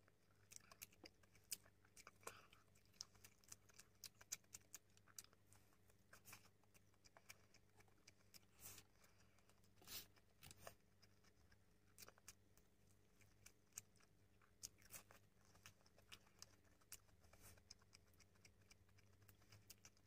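Faint eating sounds: scattered soft clicks of chewing and of food being handled, with a few louder crackles about halfway through as a fried fish spring roll's crisp wrapper is torn apart.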